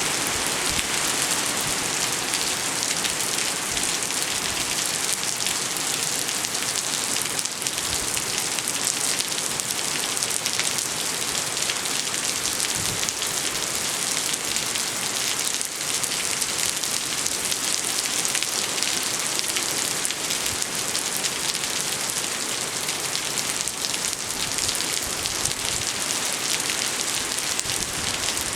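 Steady hurricane rain pouring down, a dense even hiss with fine pattering that holds unchanged throughout.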